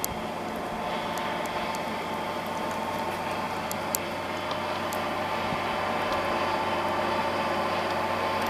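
Railway rotary snow plough running steadily as it clears the track and throws snow, a continuous mechanical drone with a few sharp clicks; it grows a little louder in the second half.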